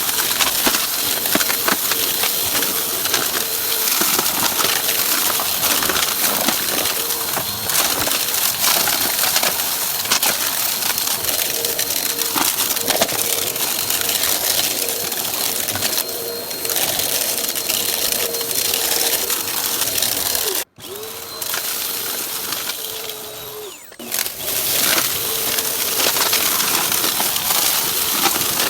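Vacuum cleaner running with a steady motor whine, crackling and crunching as it sucks up debris. The sound drops out suddenly about two-thirds of the way through, comes back quieter for a few seconds, then returns to full level.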